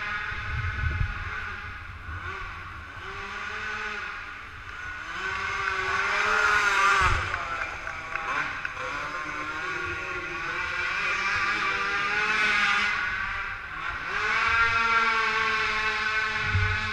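450cc four-stroke racing quads (ATVs) revving around a dirt track, their engine pitch rising and falling as the riders work the throttle. The sound is loudest about six to seven seconds in and again near fifteen seconds.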